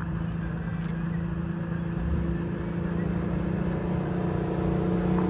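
A car engine running with a steady drone that grows louder toward the end, as if the car is coming closer or building revs.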